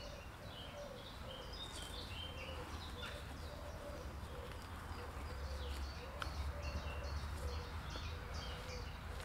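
Wild birds singing, a stream of short high chirps and phrases throughout, with a lower repeated call and a steady low rumble underneath.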